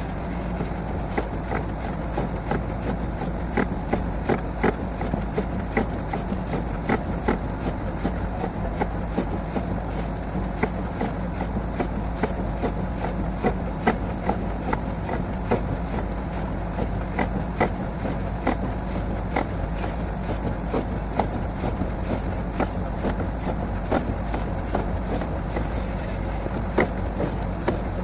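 Borewell drilling rig's engine running steadily, with frequent irregular sharp clicks and knocks over the drone.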